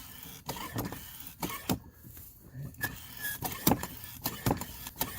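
Irregular clicks and knocks of a pump head being worked onto the valve stem of a fat-bike inner tube.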